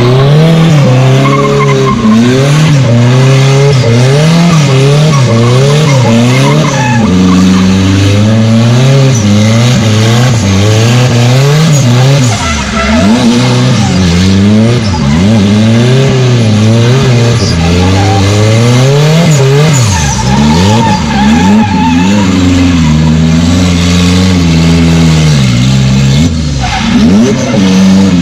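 Turbocharged Chevrolet Chevette engine revving hard, its pitch swinging up and down over and over as the car is held in a drift on wet tarmac.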